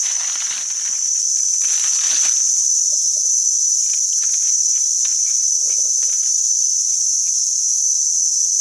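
A loud, unbroken insect chorus drones at a steady high pitch. Scattered faint rustles and ticks sound underneath it, briefly louder about two seconds in.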